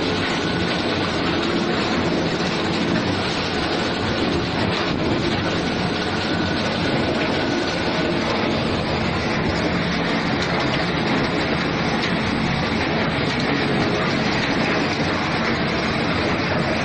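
Potato chip production line running: the belt conveyor and its electric drive motors make a steady, continuous mechanical noise.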